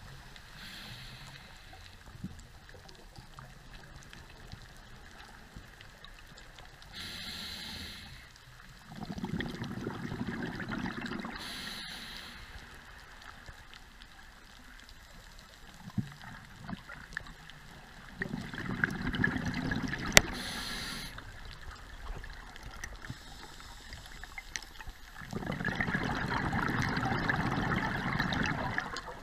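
Scuba diver's regulator breathing heard underwater: three long bursts of exhaled bubbles, the last near the end, with short hissing inhalations between them.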